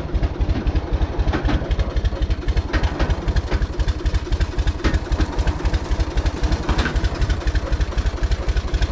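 Farm tractor's engine running with a steady, rapid low pulsing, with a few light metallic clicks over it.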